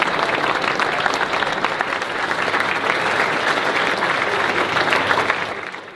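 A group of people applauding, a dense patter of many hands clapping that dies away near the end.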